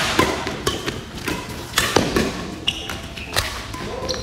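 Badminton doubles rally on a wooden indoor court: sharp cracks of rackets striking the shuttlecock, spaced about a second apart, mixed with players' footfalls thudding on the floor.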